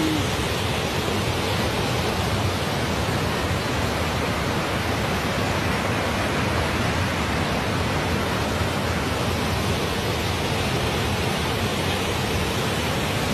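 Muddy floodwater rushing and pouring over a low concrete spillway, a steady even roar of flowing water.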